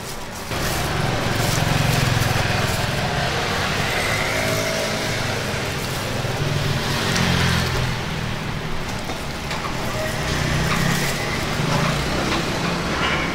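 Steady low rumble of road traffic with a hiss above it, going on without a break.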